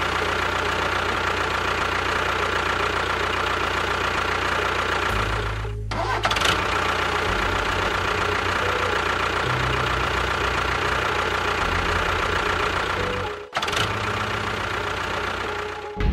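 Small DC motor of a homemade mini water pump running steadily with a whirring whine, cut off for a moment twice.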